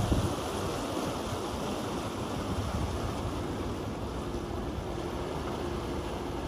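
Wind buffeting the microphone over the steady drone of a large motor barge's engine as it moves away.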